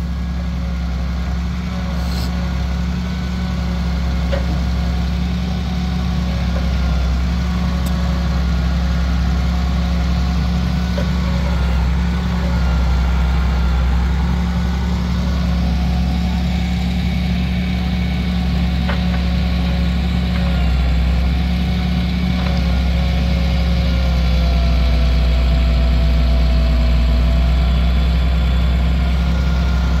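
A truck's diesel engine running steadily to power its hydraulic log-loading crane, with fainter whining tones that drift up and down in pitch and a few light knocks.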